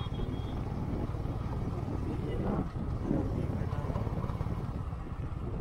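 Motorcycle engine running steadily while riding along a road, a continuous low rumble.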